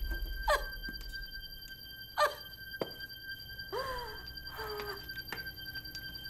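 A woman crying in short, falling whimpers, four of them, the second the loudest, over a faint steady high-pitched tone.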